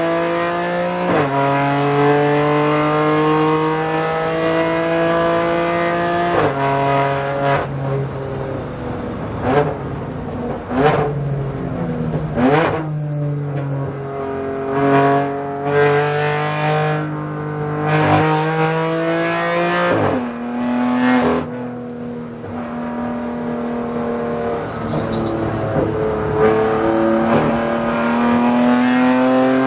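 BMW M4 GT4 race car's twin-turbo straight-six heard from inside the cockpit at full throttle. The engine note climbs and breaks with quick upshifts about a second in and again about six seconds in. It then breaks repeatedly as the car brakes and shifts down for a slow corner, and climbs steadily again on the exit.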